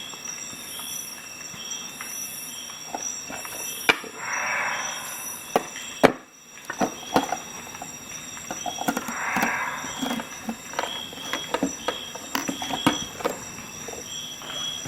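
A Victorinox Swisschamp XLT Swiss Army knife being handled: a series of sharp clicks of its metal tools and scales, with two short stretches of rustling.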